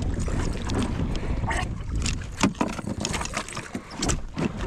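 Wind buffeting the microphone and water slapping against a drifting jet ski's hull, with scattered sharp knocks and clicks.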